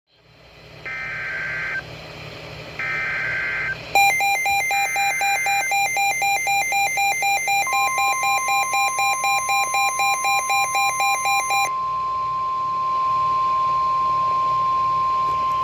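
Emergency Alert System flash flood warning tones: three short bursts of warbling digital data tones (the SAME header), then a rapid beeping alarm of about three to four beeps a second that starts about four seconds in, and from about eight seconds in a steady single-pitched warning alarm tone of the kind used on NOAA Weather Radio, which outlasts the beeping.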